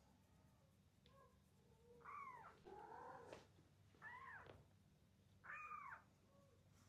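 Kittens mewing: four short high-pitched mews starting about two seconds in, each rising and then falling in pitch, the second one lower and rougher.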